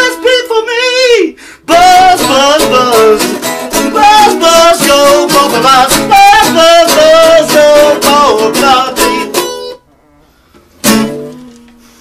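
Acoustic guitar strummed with a man's voice singing a wavering, wordless melody over it. The song stops about ten seconds in, and a single last strummed chord rings out and fades about a second later.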